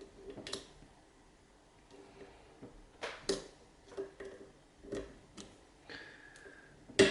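Small metal clicks and ticks of a 7-pin tubular cam lock being picked under heavy tension, as the pick works the pins one at a time. The clicks are irregular, and one louder, sharp click near the end is a binding pin setting.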